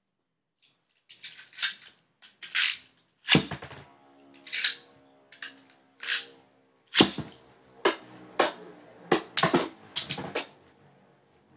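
Beyblade tops, Rock Leone and Storm Pegasus, spinning in a plastic stadium and clashing: a run of about a dozen sharp clacks and knocks at irregular intervals as the metal wheels hit each other and the stadium walls.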